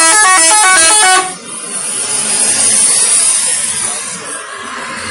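Indonesian bus 'telolet' multi-tone horn playing a fast stepped melody, which stops about a second in. After it come a few seconds of loud, even noise with no tune.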